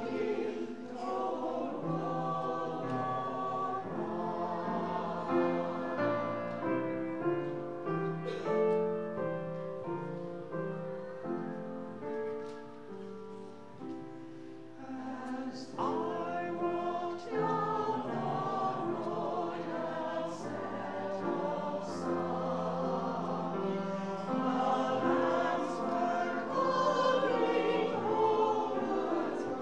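Mixed choir of men and women singing in parts, accompanied by grand piano. It softens for a few seconds near the middle, then builds louder toward the end.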